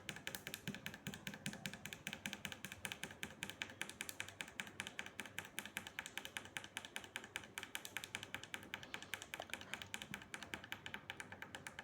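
A small tactile micro switch on a circuit board being pressed rapidly and repeatedly with a finger, a quick even run of light clicks, several a second. The switch has just been sprayed with WD-40 and is being worked to clean its contacts after it stopped conducting properly.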